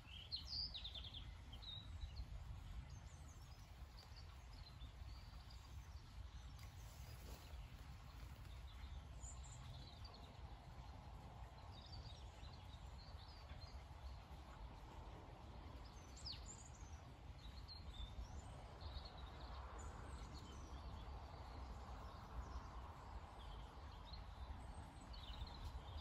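Faint outdoor ambience: small birds chirping here and there over a low, steady rumble.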